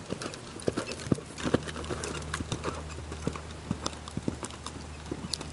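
Hoofbeats of a horse cantering on a sand arena: a run of dull, uneven thuds and knocks.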